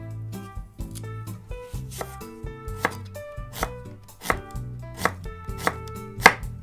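Chef's knife slicing raw peeled Japanese turnip into thin slices on a hinoki wood cutting board: a crisp chop roughly every three-quarters of a second, each cut ending in a knock of the blade on the board, the loudest near the end. Soft background music plays underneath.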